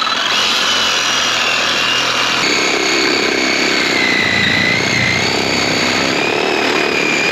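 A machine running steadily, with a high whine that drifts slightly up and down in pitch.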